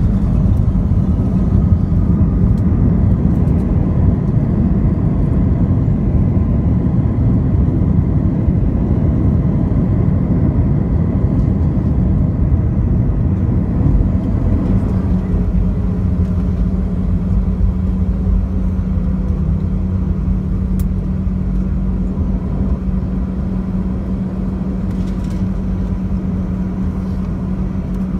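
Cabin noise of an Airbus A319 rolling out on the runway after landing: a loud rumble of engines and wheels that eases gradually as the jet slows, with a steady low hum coming in about halfway through.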